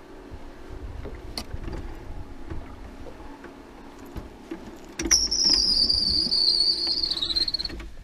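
Wind buffeting the camera microphone, growing louder about five seconds in, when a high whine starts and falls slightly in pitch for nearly three seconds before cutting off.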